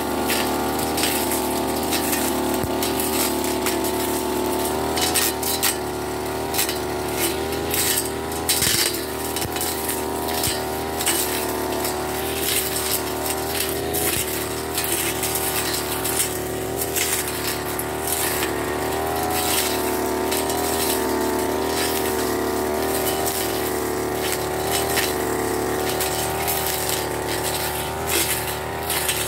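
Backpack brush cutter engine running steadily at cutting speed, its pitch wavering slightly as the throttle shifts, with frequent sharp ticks and clicks as the cutting head goes through grass and weeds.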